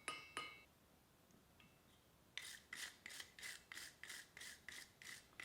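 Stiff wire brush scrubbed back and forth over a freshly forged round bar, about three strokes a second, starting about two seconds in. It is brushing off the scale and any surviving hammer facets.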